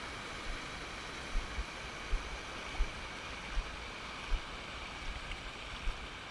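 Steady rushing hiss of a waterfall, with low dull thumps at a regular pace of about one and a half per second.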